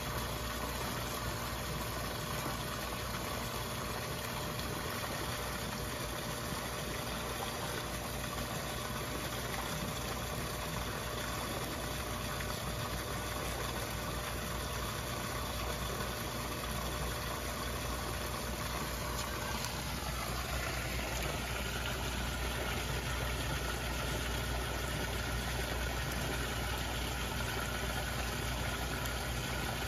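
Steady rush of pond water with a low hum beneath, shifting in tone about twenty seconds in.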